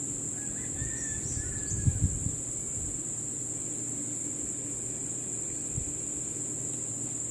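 Steady, high-pitched chorus of insects such as crickets, with a few dull low thumps about two seconds in and one more near the end.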